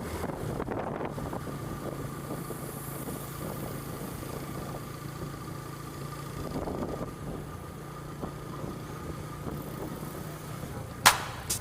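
Vehicle engine running steadily, a constant low hum with a faint steady higher tone over it; a short knock near the end.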